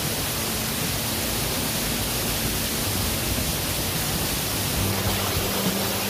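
A waterfall about 15 m high crashing into its plunge pool: a steady, loud rush of falling water. A low steady hum comes in near the end.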